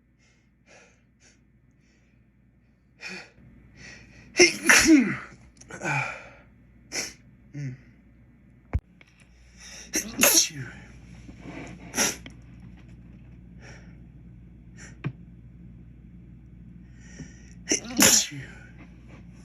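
A man in a fit of sneezing set off by inhaled white pepper: a run of sudden sneezes, the loudest about five seconds in, then again around the middle and near the end, with smaller breaths and noises between.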